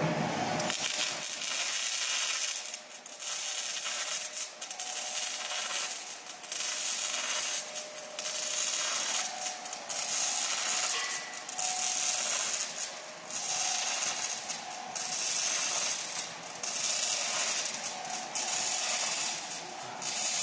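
Robotic arc welding on steel plate: the arc crackles and hisses in a string of short welds, each about one to two seconds long with brief breaks between them.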